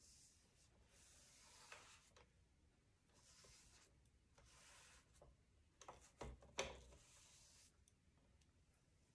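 Faint swishes of a paintbrush drawn through wet enamel paint along a cabinet door, stroke after stroke, with a few light knocks about six seconds in.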